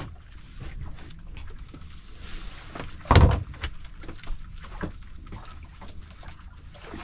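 A steady low rumble with scattered light knocks, and one louder thump about three seconds in.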